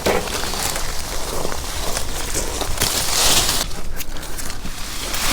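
Leafy holly branches rustling and crackling as a slice-cut limb is pulled down through the tree's canopy, with small snaps and scraping of leaves.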